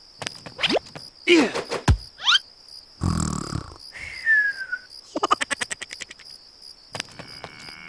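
A string of cartoon sound effects: quick sliding whistle-like glides up and down, a short noisy burst, a single falling tone, then a fast rattle of about ten clicks a second.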